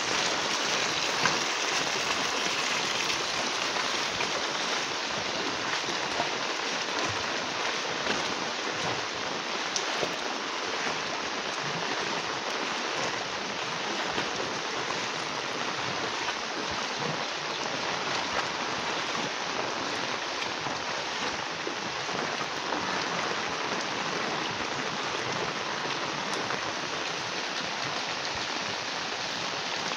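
Heavy rain falling on a flooded street, splashing into standing and running floodwater as a steady, even hiss.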